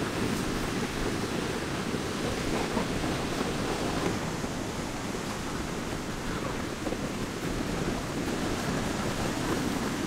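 Surf on a beach: a steady rushing roar of waves, heaviest in the low end, with some wind.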